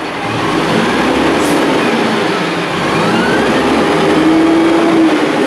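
White Xpeditor front-load garbage truck with an Amrep body, its diesel engine running loud and steady as it pulls away with the loader arms raised. A steady whine comes in near the end.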